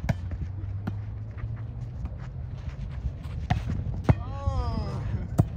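A volleyball being struck by hands again and again, sharp slaps of skin on the ball, the loudest about four seconds in and near the end. Right after the loud hit about four seconds in, a player's drawn-out shout falls in pitch over about a second, over a steady low rumble.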